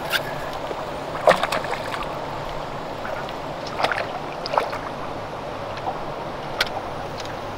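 Wind-driven water lapping against the hull of a small jon boat, with several short, sharp slaps and splashes over a steady low hum.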